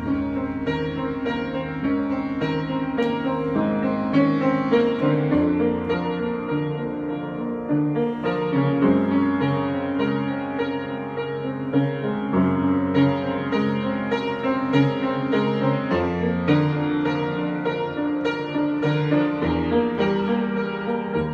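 Improvised solo piano music: chords and melody notes played continuously, new notes struck every second or so.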